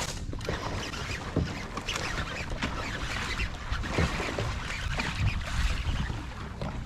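Water splashing as a largemouth bass blows up on a topwater frog lure and then thrashes at the surface while hooked, with the loudest splash about four seconds in, over a steady rushing hiss.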